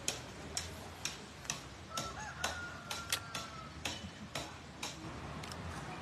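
Footsteps of someone walking, heard as sharp, regular clicks about two a second.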